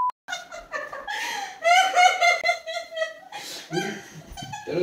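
A woman laughing in several fits, the longest a high-pitched peal about two seconds in.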